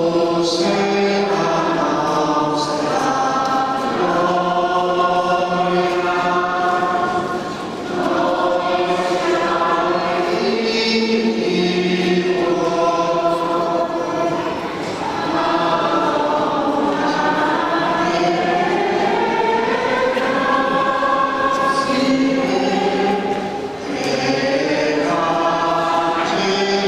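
A choir singing a slow hymn, voices moving together in long held notes, with brief pauses between phrases about eight seconds in and again near the end.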